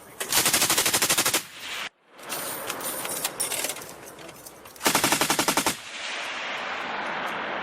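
Light machine gun firing two bursts of automatic fire, each about a second long and roughly a dozen shots a second, with the shots echoing between the bursts.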